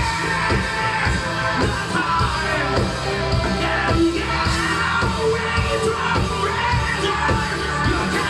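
A rock band playing live and loud, with a steady drum beat and sustained bass and guitar, and a sung vocal line over it.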